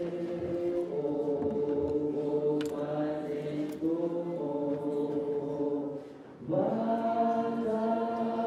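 Church congregation singing a slow hymn together with long held notes, breaking off briefly about six seconds in before the next line begins.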